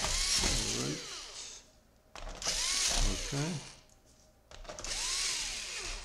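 Small electric screwdriver driving screws in three bursts of about a second and a half each, its whine rising and then falling in pitch within each run.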